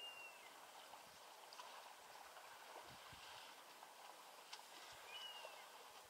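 Faint flowing water of a shallow, rocky river, with a short high whistle, falling slightly at its end, heard twice: at the start and about five seconds in.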